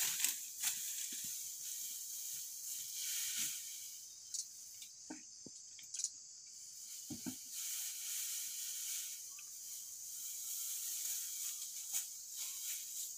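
Steady, high-pitched insect drone, with scattered light knocks and creaks as someone climbs about on a bamboo-and-mud structure, and one duller thump about seven seconds in.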